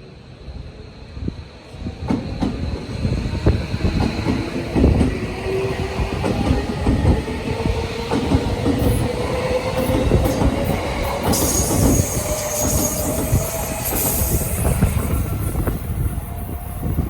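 Tobu Line electric train running at the station: wheels clack over rail joints under a heavy rumble, while a motor whine climbs steadily in pitch as the train gathers speed. A hiss of high noise joins about two-thirds of the way through.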